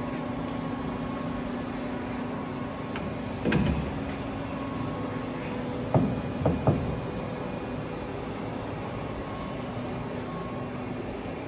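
Metal clunks from a Weiler E110 lathe being handled over a steady machine hum: a dull thump about three and a half seconds in, then three sharp knocks in quick succession about six seconds in as the tool post's clamping lever is worked.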